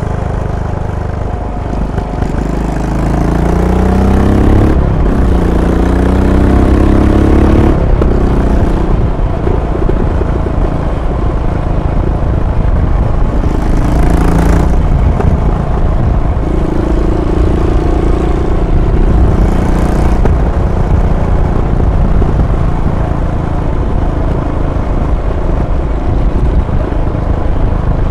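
Royal Enfield Bullet 500's single-cylinder engine and exhaust under way. The revs climb from about two seconds in, drop at a gear change about five seconds in and climb again, then the engine settles to a steady cruise.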